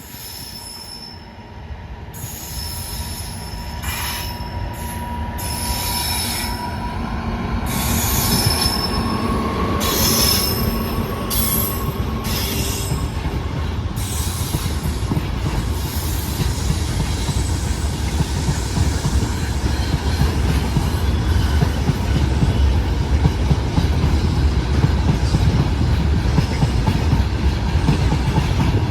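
Freight train of petroleum tank wagons behind a WAG-9HC electric locomotive, its wheels screeching on the rails in repeated high-pitched squeals through the first half. The rumble of the rolling train grows steadily louder underneath and takes over in the second half.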